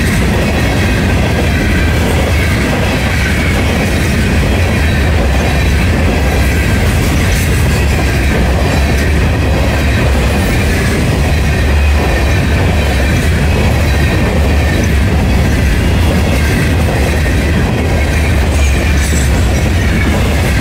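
Freight cars of a Florida East Coast Railway train rolling past close by: a loud, steady rumble of steel wheels on rail, with a faint wavering high squeal over it.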